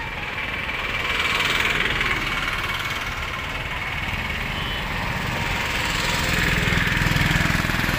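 Fresh engine oil pouring from a 5-litre can through a cut plastic-bottle funnel into the engine's oil filler, over a steady engine-like running sound.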